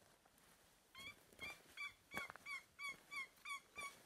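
A run of about nine yelps from a hunter's turkey call, evenly spaced at roughly three a second, starting about a second in. It is hen-style yelping used to draw a response from gobblers.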